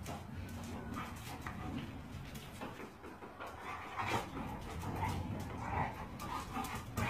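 Two dogs play-fighting, with faint dog vocal noises and scuffling.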